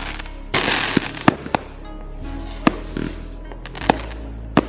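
Consumer fireworks going off: a hissing burst about half a second in, then a string of about six sharp bangs and pops at uneven intervals.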